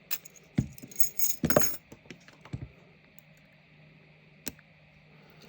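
Small metal clinks and rattles from a brass padlock and steel lock picks being handled. A quick run of sharp clicks comes in the first two seconds or so, then it goes quiet apart from one faint tick.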